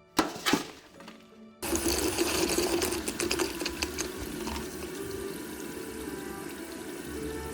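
Steady rushing of water over a low machine hum, which starts suddenly about a second and a half in. Two brief loud knocks come just before it.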